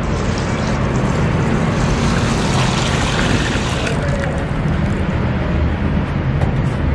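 Water poured from a steel jug into a large aluminium pot of soaked basmati rice, a steady gushing splash that eases off about four seconds in.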